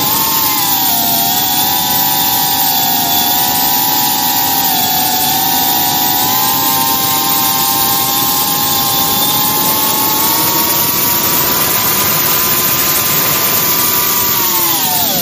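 Quadcopter drone's electric motors and propellers whining loudly over a steady hiss, the pitch wavering as the throttle changes and dropping sharply near the end.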